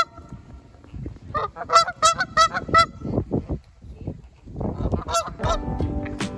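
Canada geese honking: a quick run of about half a dozen honks, then a short burst of a few more a little after the five-second mark.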